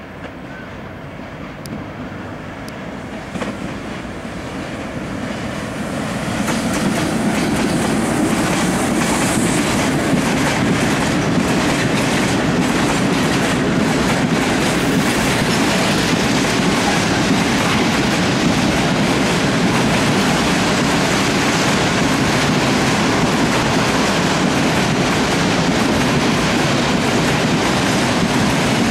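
Freight train of tank wagons hauled by an E182 electric locomotive rolling past, the wheels clicking over the rail joints. The sound swells over the first six seconds and then holds steady as the wagons go by.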